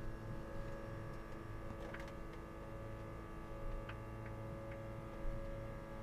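Steady hum of the Seederal electric tractor's drivetrain, heard inside the cab while pulling a disc harrow: several even tones over a low rumble, with a few faint ticks.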